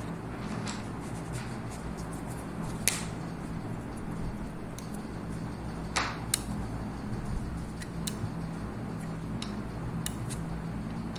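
A steady low hum with a few short, sharp clicks scattered through it, the loudest about six seconds in.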